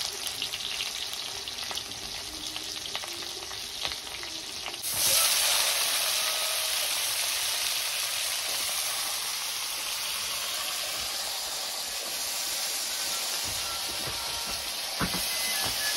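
Hot oil sizzling in a kadai over a wood fire. About five seconds in, the sizzle jumps suddenly louder as potato pieces go into the oil, then settles into a steady frying hiss, with a short clack near the end.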